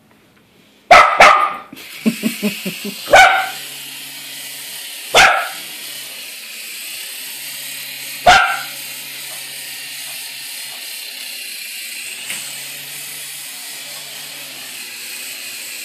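A small dog barking sharply at a toy RC helicopter: two quick barks about a second in, then single barks around three, five and eight seconds in. Under them, starting just after the first barks, the toy helicopter's small electric rotor motor runs with a steady whirring hum as it flies.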